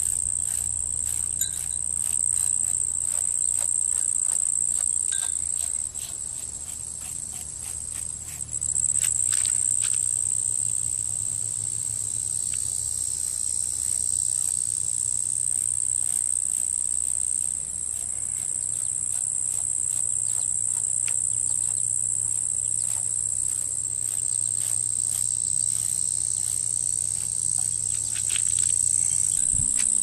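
Insect chorus: a steady, high-pitched chirring that holds throughout, softening briefly and picking back up about eight seconds in.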